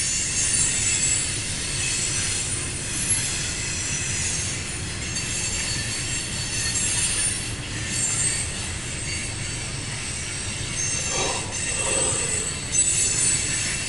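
Loaded coal train's hopper cars rolling past: a steady rumble of steel wheels on rail, with high-pitched wheel squeal coming and going.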